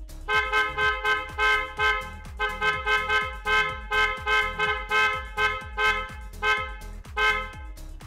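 A pair of TST Hella-type snail horns (electric spiral horns) sounding two tones together in short, repeated honks, about two a second, which stop shortly before the end. A steady beat of background music runs underneath.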